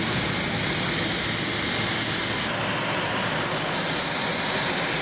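Twin jet engines of an Airbus A319-100 airliner running at taxi power: a steady, even rush with a faint high whine.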